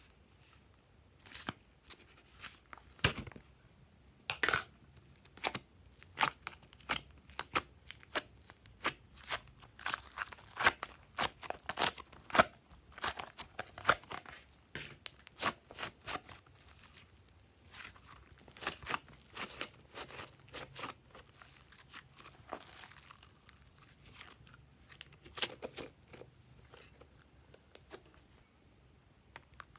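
Glossy red slime being pulled out of its clear plastic tub by hand: an irregular run of sticky crackles, pops and plastic crinkles, thinning out in the last few seconds.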